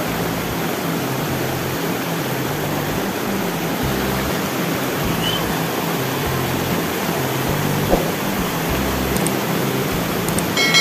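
Steady rushing of a rocky mountain river, an even hiss with no let-up. Near the end comes a click followed by a brief chime.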